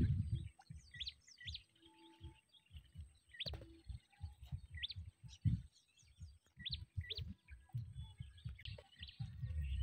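A small bird calling repeatedly, short chirps that sweep upward in pitch, every second or two. Low thumps and rumble on the microphone run beneath them.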